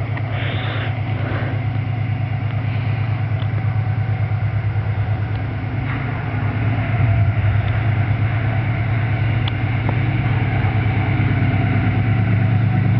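Diesel engine of CSX locomotive 657 running with a steady, pulsing low beat that grows somewhat louder about seven seconds in.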